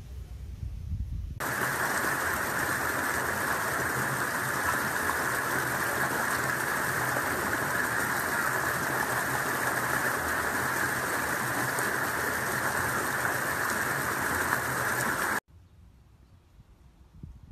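A steady, even rushing hiss, without any tone or rhythm, that starts abruptly about a second and a half in and cuts off suddenly near the end.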